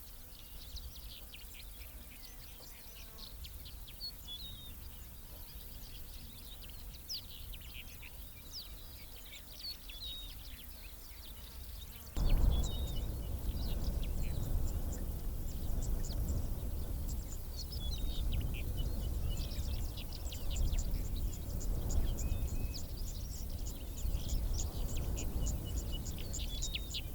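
Wild birds chirping and calling in short high notes throughout. About halfway through, a steady low rumbling noise comes in suddenly and continues under the birdsong.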